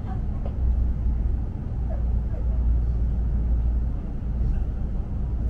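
Cabin running noise of a London Northwestern Railway electric passenger train pulling out of the station: a steady low rumble.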